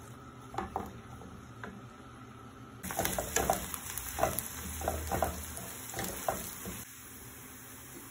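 Chopped onion frying in oil in a ceramic frying pan, stirred with a wooden spatula that scrapes and knocks against the pan. A few light knocks at first; about three seconds in the sizzle grows louder and the stirring becomes busy with many clicks, stopping a little before the end.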